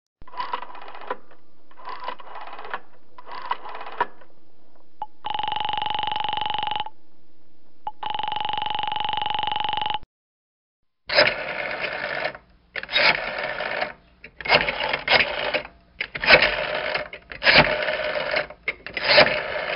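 Old rotary telephone dial being turned and let go, each release giving a quick whirring run of clicks as the dial spins back. Three short runs are followed by two long steady tones on the line. About eleven seconds in a second, louder dialling sequence begins, with about six spins in quick succession.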